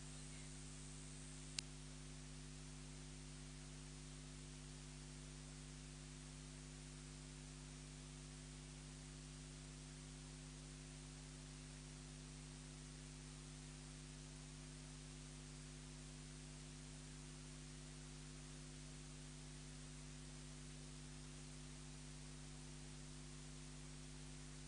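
Near silence: a faint steady hiss and electrical hum from the audio line, with one sharp click about a second and a half in.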